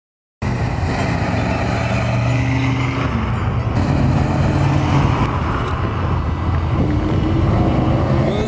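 A classic car's engine running steadily as it approaches, its rumble cutting in suddenly about half a second in, with the pitch rising over the last couple of seconds.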